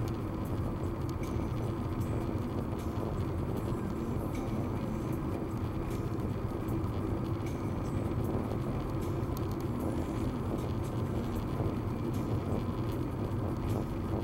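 Steady road noise inside a car cruising at highway speed: tyres on the road surface and the engine's low hum.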